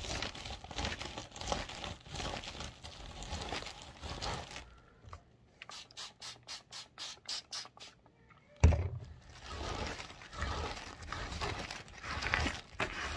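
Paper towel rubbing and wiping over a bag, then a quick, even run of about a dozen short strokes, around four a second, for about three seconds. A loud thump comes just past the middle, and the wiping picks up again after it.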